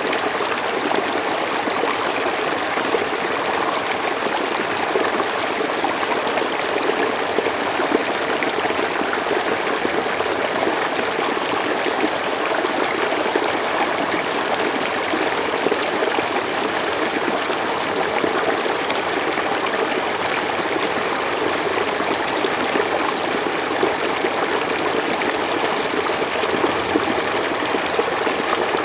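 River water flowing over rocks, a steady rushing and trickling.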